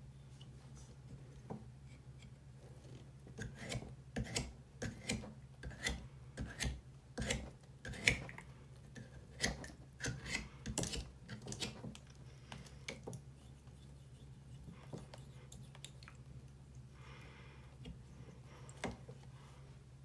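A stick of red chalk scraped and rubbed against the neck of a plastic water bottle, in irregular scratchy strokes and clicks that come thick and fast through the first half and then thin out. A low steady hum runs underneath.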